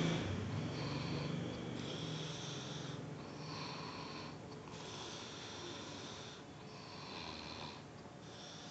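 Snoring in deep sleep: rhythmic snoring breaths about every second and a half, with a low rumble that is loudest at first and grows fainter.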